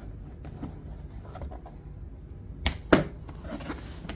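A cardboard product box being opened and its packing handled: scattered scrapes and rustles, with two sharp knocks in quick succession about two-thirds of the way through.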